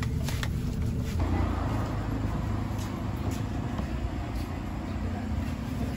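Steady low rumble of a motor vehicle running, with a few light clicks at first; it grows louder and fuller about a second in.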